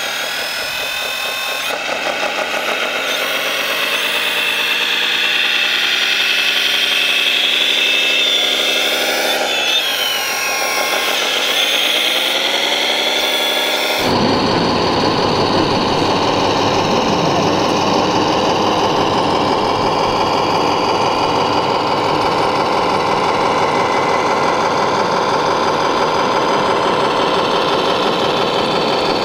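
1/14-scale RC construction models running on electric drive: motors and gearing whine and rise and fall in pitch as the machines speed up and slow. About halfway through the sound changes abruptly to a lower, denser steady drone.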